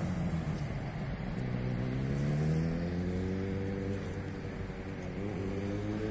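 Road traffic: a passing vehicle's engine note rises over a couple of seconds and then falls away, over a steady low drone.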